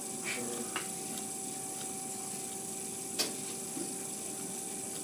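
Electric pottery wheel humming steadily as it spins, with a single sharp click about three seconds in.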